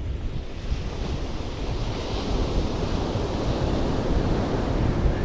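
Surf breaking and washing on a shingle beach, swelling to a louder wash around the middle, with wind rumbling on the microphone.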